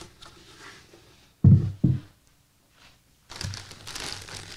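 Two dull thumps as a black intake tube is set down on a cloth-covered table, then a clear plastic hardware bag crinkling as it is picked up and handled.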